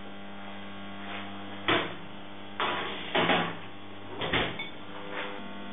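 A metal baking tray of potatoes being slid into an oven and the oven door shut: about five sharp knocks and clatters over a few seconds, against a steady electrical hum.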